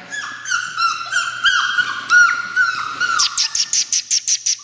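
Several young puppies whining, with overlapping thin high whimpers that drop in pitch: the whining of nervous pups in an unfamiliar pen. Past the middle, a fast run of short high chirps joins in, about eight a second.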